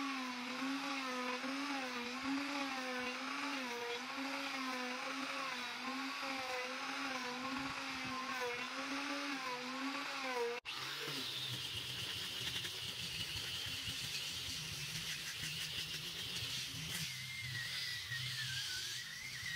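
Electric wood router running in a planing sled, its motor whine wavering in pitch as the bit takes load while it is pushed across the board. About ten seconds in, the sound cuts to a handheld disc sander running on the planed board, a lower steady hum with hiss.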